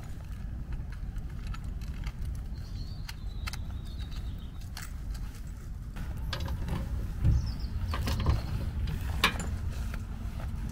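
Sharp clicks and knocks of hands working the latches and opening the hinged door of a metal electrical enclosure, the loudest clicks coming about seven to nine seconds in, over a low steady rumble.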